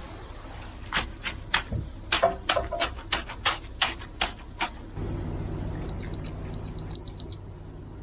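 A quick run of sharp clicks and taps, then, about six seconds in, a laser receiver on a grade rod gives a string of short high beeps as it picks up the beam of a self-leveling rotary laser. A low rumble sets in underneath about five seconds in.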